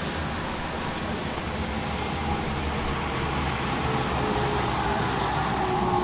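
Tram approaching and slowing for the stop: its motor whine falls slowly in pitch over the last couple of seconds, above a steady low rumble of traffic that grows a little louder.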